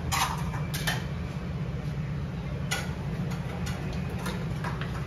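Eatery-front ambience: a steady low hum with about ten irregular light clinks of dishes and utensils scattered through it.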